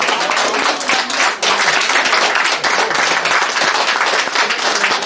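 Congregation applauding: many hands clapping in a dense, steady wave.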